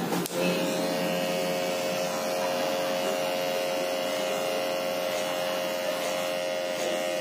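Electric hair clipper switched on just after the start, then running with a steady buzz.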